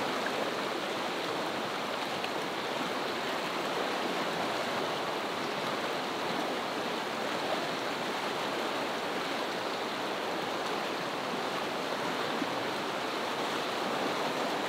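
Fast mountain river rushing over rapids: a steady, unbroken rush of water.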